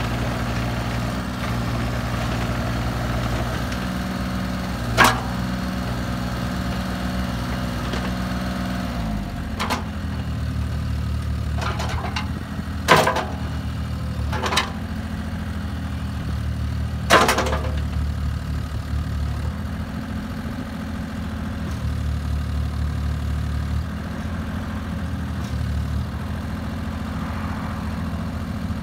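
Bobcat mini excavator's diesel engine running steadily while the boom and bucket are worked, its note shifting about a third of the way in. Several sharp clanks from the arm and bucket come through the middle, the loudest two about halfway.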